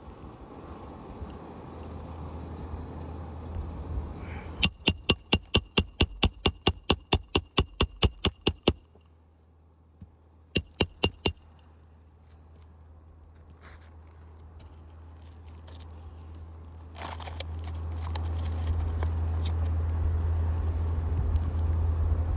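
Hammer driving roofing nails by hand into a new shingle: a run of about seventeen sharp, ringing metal strikes at about four a second, a pause, then four quick taps. A low rumble builds toward the end.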